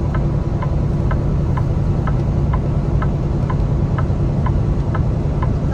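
Semi truck, a Kenworth T680, cruising on the highway: a steady engine and road rumble in the cab, with a light, even ticking about twice a second throughout.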